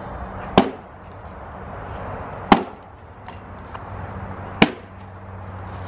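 Axe chopping into wood, three sharp strikes about two seconds apart.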